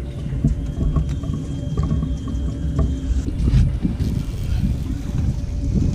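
Low, uneven rumble aboard a fishing boat on the water, steady throughout with no clear single event.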